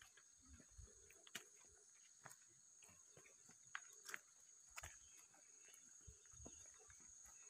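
Near silence: a faint steady high-pitched insect drone, with a few faint scattered ticks.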